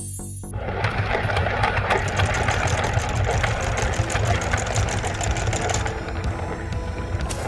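Heavy construction-vehicle engine running steadily as a sound effect, starting about half a second in just as the music cuts off, with a strong low hum under a fast, even clatter.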